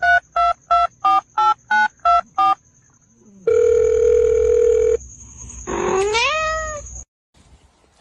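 Telephone keypad tones: about eight short beeps of differing pitch in quick succession, as if a number is being dialed, then a steady tone lasting about a second and a half. Near the end, a cat meows once, rising in pitch.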